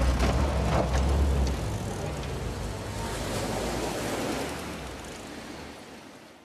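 An army jeep's engine pulling away over rough ground, fading as it goes into the distance, with sea waves washing behind it. The whole sound fades out near the end.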